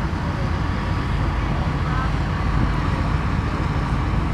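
Steady road traffic noise, with faint distant voices.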